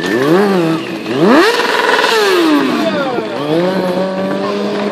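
Sports motorcycle engine revving hard: a quick blip, then a steep climb to a high held pitch about a second in, dropping back around the three-second mark, then rising again and holding a steady rev.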